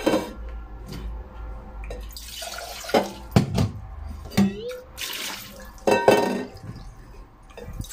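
Water running from a kitchen tap into a cooking pot for a few seconds, with several knocks of pot and utensils. A little water is being added to the pot for boiling.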